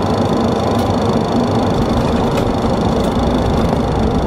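Boeing 737 cabin noise: the engines and airframe give a steady, loud rumble with a high, even whine, and faint ticks come about once a second.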